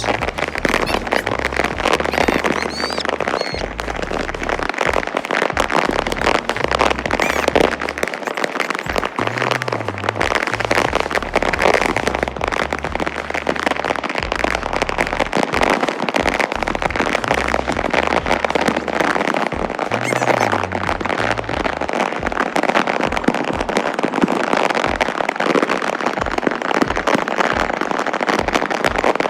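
Firecrackers and fireworks going off in a rapid, unbroken crackle of pops, with a bass-heavy music track underneath.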